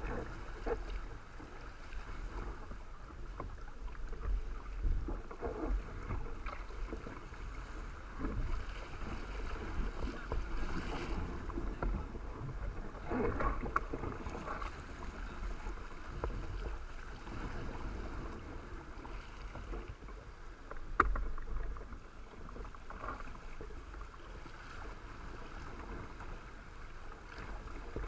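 Water rushing and slapping against a Hobie Cat catamaran's hull as it sails upwind through choppy water in a strong wind, with irregular splashes. There is a surge of spray about halfway and a single sharp knock about two-thirds of the way through.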